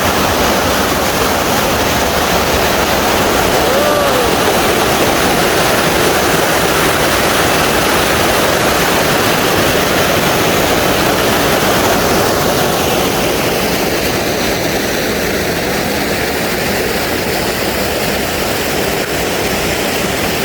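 Water of a waterfall rushing, a steady loud wash of noise.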